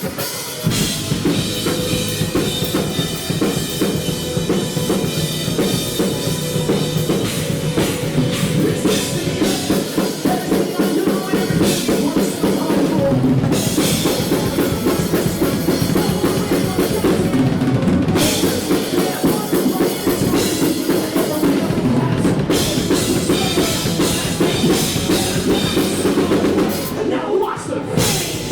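Rock band playing, with the drum kit to the fore: bass drum and snare driving a steady beat under dense, sustained instruments.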